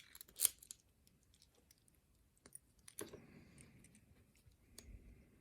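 Small sharp clicks and light scraping of metal parts being handled as a cheap padlock is taken apart. The loudest click comes about half a second in, and another about three seconds in.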